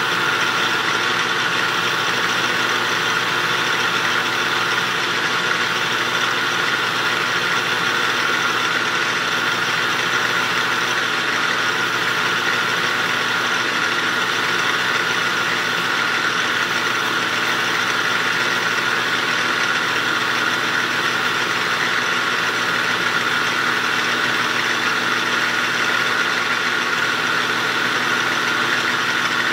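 Metal lathe running steadily with a parting blade feeding into a spinning half-inch bar to part off a small model-engine piston. The sound is an even machine hum with a steady high tone.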